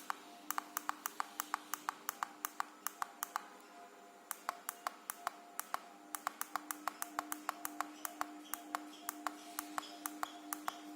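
A fast run of sharp clicks, about four a second, pausing briefly about four seconds in, over a steady hum.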